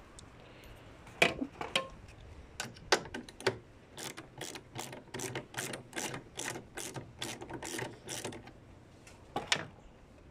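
Ratchet wrench with a 10 mm socket loosening a headlight mounting bolt, its pawl clicking. A few scattered clicks come first, then a steady run of about three clicks a second as the handle swings back and forth, and a last pair of clicks near the end.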